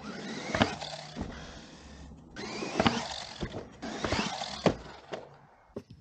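VRX Cobra brushless RC truggy driving across grass and off jump ramps, its running noise cutting off suddenly between short runs. Three sharp thumps, about two seconds apart, as it lands.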